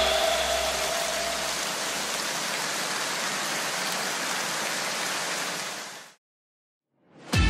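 Steady rushing wind noise on a motorcycle-mounted camera's microphone at about 85 km/h. It fades away about six seconds in.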